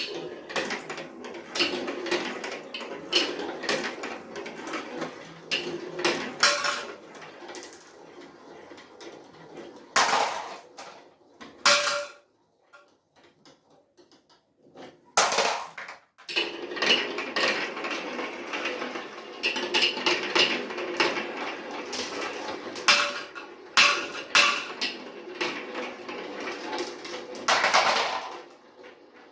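Marbles rolling and clattering down a plastic building-block marble run, with many sharp clicks and knocks as they drop and hit the pieces. The run goes quiet for a few seconds in the middle, then a fresh stream of marbles clatters down.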